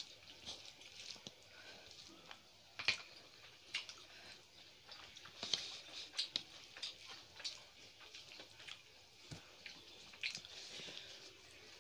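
Eating by hand: faint wet chewing and lip smacks, with fingers squishing and mixing rice and curry on plates, heard as scattered soft irregular clicks.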